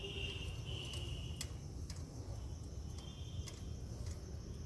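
A few sharp metallic clicks from handling a motorcycle compression gauge and its hose while the adapter is fitted into the spark-plug hole, over a low steady hum. A faint high steady tone comes and goes twice.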